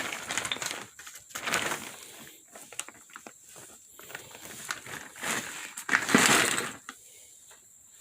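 A run of irregular crunching and rustling noises, the loudest and longest burst about six seconds in.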